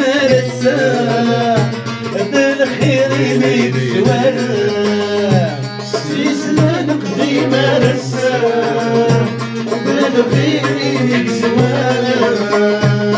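Kabyle folk song played live on plucked mandole and oud with a tambourine, and men singing a wavering melody over the strings.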